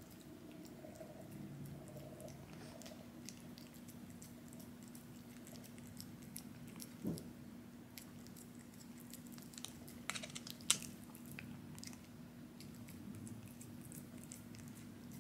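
A cat chewing on pieces of a frozen Churu treat popsicle: faint, scattered crunchy clicks, with a burst of them about ten seconds in. A faint steady low hum runs underneath.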